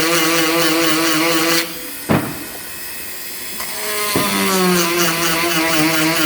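Dremel rotary tool with a small cone grinding stone filing the teeth of a chainsaw chain: a steady motor whine under load that stops about a second and a half in. A second pass starts about four seconds in, its pitch dropping and settling lower as the stone bites into the next tooth.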